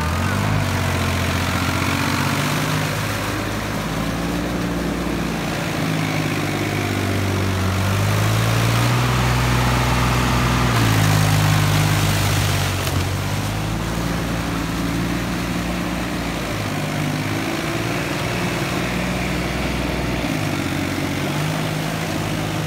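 Tractor diesel engine working under load in deep paddy mud, its pitch rising and falling as the revs change.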